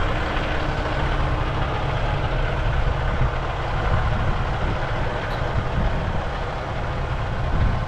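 Diesel semi-truck engine idling with a steady low rumble.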